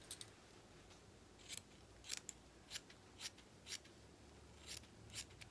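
Scissors snipping through fabric: faint, short, separate snips, about ten of them, coming roughly every half second as an uneven edge is trimmed straight.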